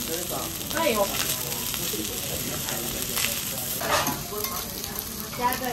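Fried rice sizzling on a hot teppanyaki steel griddle while metal spatulas chop, toss and scrape through it, with a few sharp scrapes and clicks of steel on the plate.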